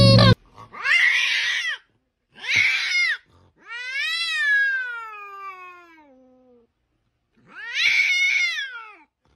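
A domestic cat yowling: four loud, drawn-out meows, the third the longest and sliding down in pitch as it fades out.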